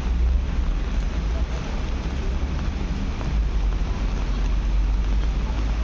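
Steady outdoor street noise with a heavy low rumble of wind buffeting the microphone.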